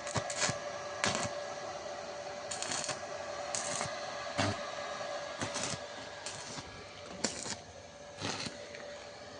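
Steady hum of a small inverter stick welding machine, with about ten short, sharp crackles or taps at irregular intervals, roughly one a second.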